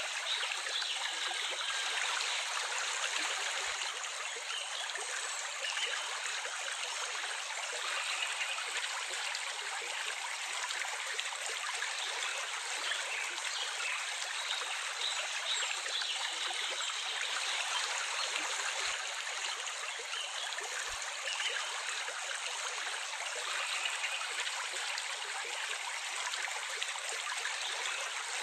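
Running water of a small stream trickling and gurgling steadily, with no change in level.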